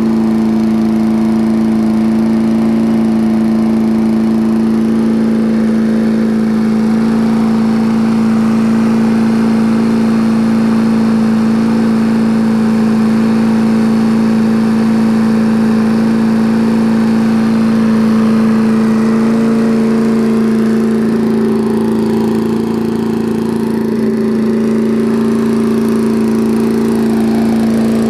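Murray push mower with its 1978-era Briggs & Stratton single-cylinder engine running steadily and evenly, a strong unbroken hum. The owner calls the engine a great runner.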